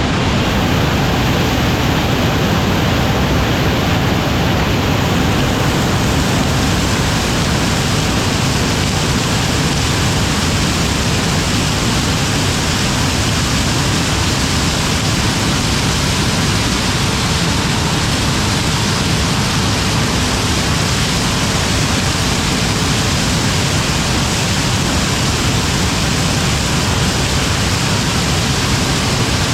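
A loud, steady roar of noise with no distinct tones or rhythm.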